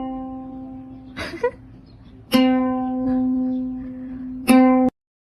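Single notes plucked on a string instrument such as a guitar or ukulele, each ringing out and fading. A fresh note comes about two seconds in and another near the end, with a brief softer sound between them. The sound cuts off abruptly just before the end.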